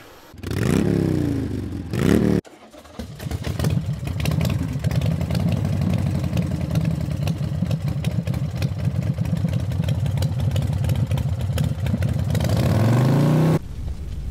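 Motorcycle engine: a short rev early on that breaks off after about two seconds, then steady running with a rapid even pulsing beat, rising in pitch as it is revved near the end and cutting off suddenly.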